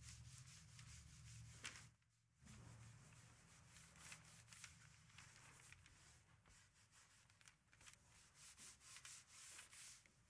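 Faint scratchy rubbing on a vegetable-tanned leather belt in quick, irregular strokes, with a short break about two seconds in: a cloth rubbing oil into the leather, then a small pad worked along the belt's edge.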